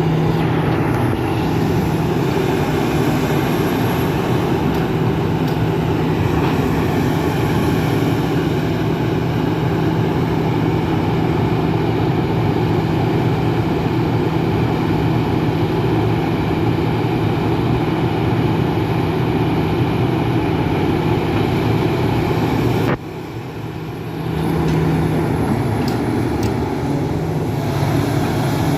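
Excavator's diesel engine running steadily with a continuous drone. About three-quarters of the way through it drops off suddenly, then builds back to the same steady running a second or so later.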